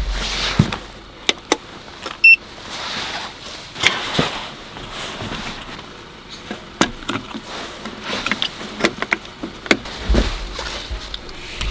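Knocks, clicks and rustles of things being handled in and around a car, with a low thud at the start and again about ten seconds in, and one short electronic beep about two seconds in.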